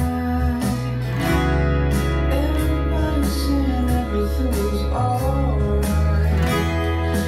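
Steel-string acoustic guitar strummed in a steady chord progression.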